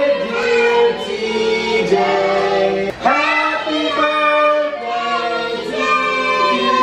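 Children and adults singing a birthday song together, with long held notes.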